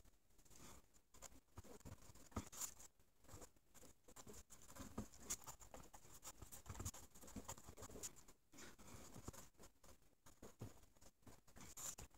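Faint scratching of a pen writing on a paper legal pad, in short, irregular strokes.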